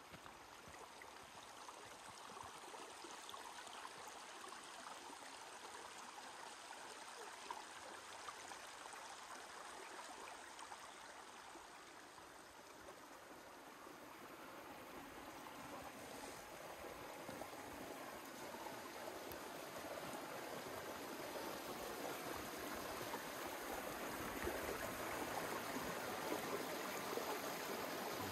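Small creek running, a steady rush of water that grows gradually louder toward the end.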